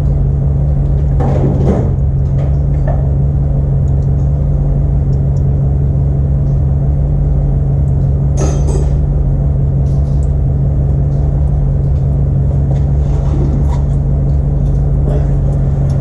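A steady low drone, with scattered metallic clinks and clatters of hand tools being picked up and handled.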